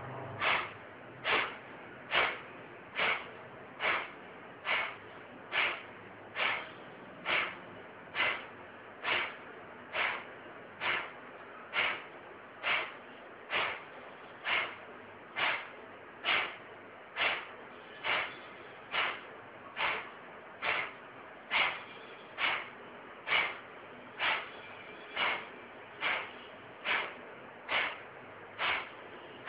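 Kapalbhati breathing: short, forceful exhalations snorted out through the nose, repeating at an even pace a little more than once a second.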